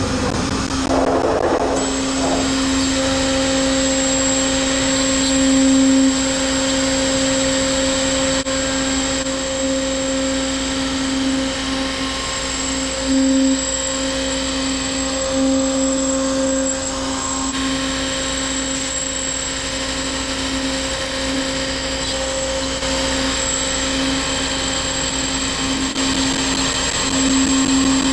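Motion Master CNC router running steadily as its spindle and bit cut 1/8-inch polycarbonate sheet, with a constant hum and a high whine that comes in about two seconds in.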